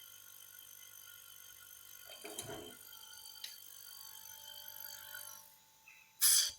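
Small home-built compressor running with a faint steady hum, with a rattle and a click along the way, then stopping about five and a half seconds in. Shortly after it stops there is a brief, loud rushing noise.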